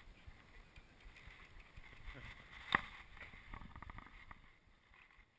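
Faint handling noise on a helmet-mounted action camera as the helmet is put on: low rustling and small knocks, with one sharp click near the middle.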